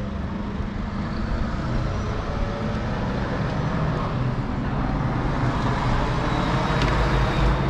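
Road traffic going by, with a lorry passing; the rumble grows louder in the second half.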